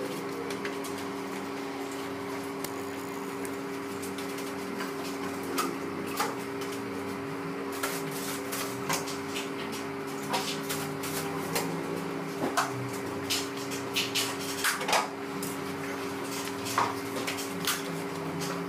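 Scattered clicks and knocks from rolls of carpet underlay being handled and laid on the floor, over a steady hum. The knocks come more often in the second half.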